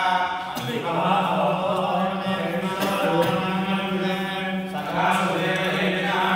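A group of Hindu priests chanting Sanskrit mantras together, the voices held on a steady pitch.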